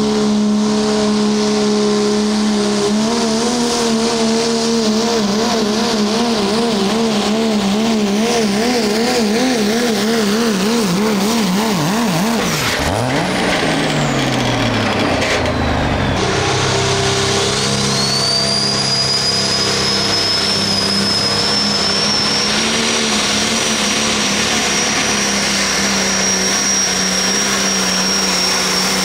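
Diesel pulling engines under full load. A Dodge pickup's diesel holds a steady note, then its pitch wavers up and down repeatedly and falls away about halfway through. After that a turbocharged International Harvester pulling tractor's engine runs hard under a high turbo whistle that rises and then holds.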